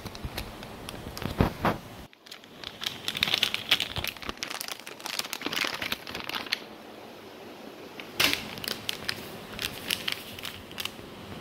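Plastic-foil sachet of matcha latte powder crinkling and crackling as it is squeezed and handled in the hand, in irregular sharp crackles.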